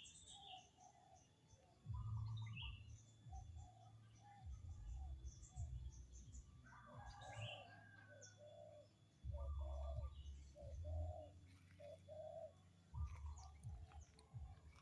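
Birds calling: short low notes repeated in a series, some of them coo-like, with scattered higher chirps over them. A low rumble comes and goes in stretches under the calls and is the loudest sound in places.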